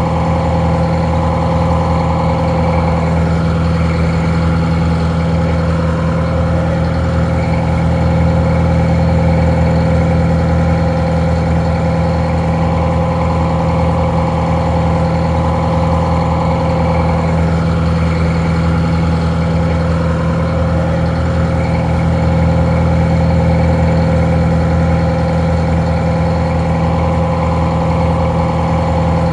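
Detroit Diesel 4-71 two-stroke inline-four diesel engine idling steadily, its sound somewhat muffled.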